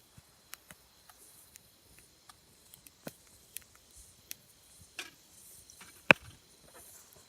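Wood campfire crackling, with irregular scattered pops and snaps; the sharpest pop comes about six seconds in.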